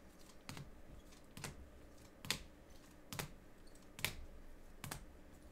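Rigid plastic top loaders holding trading cards click against each other as cards are flipped through a stack: six sharp clicks a little under a second apart.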